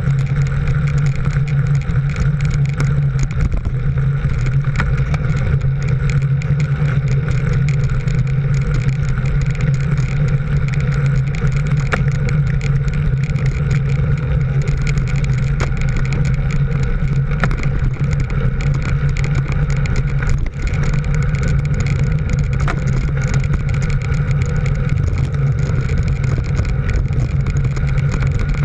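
Engine of the camera vehicle running at a steady speed: a constant, even drone that holds one pitch throughout, with road and wind noise beneath it.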